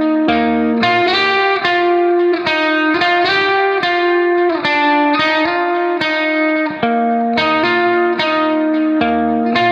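Background music: a guitar plucking a steady run of notes.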